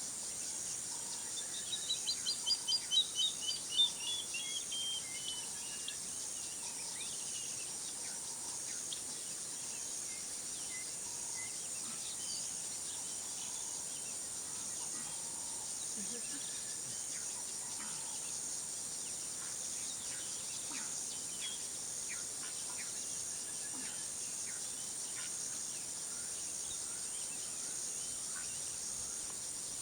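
Steady high-pitched insect drone of the hot African bush, with a bird calling a series of notes that step down in pitch and grow louder about two seconds in, and faint scattered chirps afterwards.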